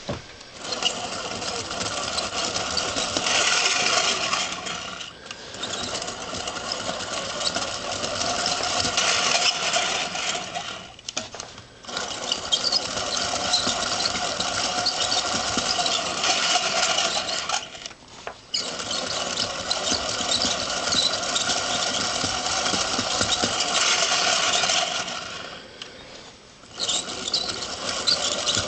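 Marinov ball-bearing motor running: stainless steel ball bearings carrying a heavy current (about 139 amps) spin the steel shaft with a steady rattling whir. The sound drops away briefly four times, near 5, 11, 18 and 26 seconds in, and picks up again each time.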